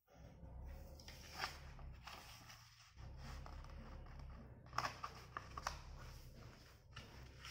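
A sheet of paper being folded and creased by hand: faint rustling with a few crisp crackles about a second and a half in and a quick run of them around five seconds, over a low steady hum.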